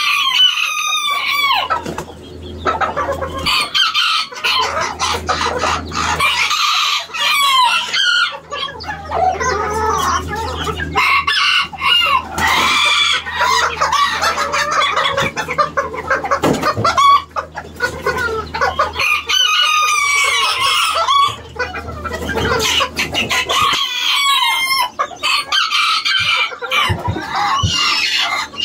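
Roosters crowing again and again, with clucking in between; the calls overlap and follow one another with hardly a pause.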